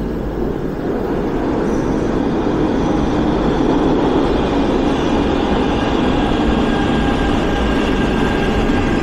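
Underground metro train arriving at the platform: its rumble in the tunnel grows louder as it comes in and runs alongside. A thin, high squeal of the wheels creeps in over the second half.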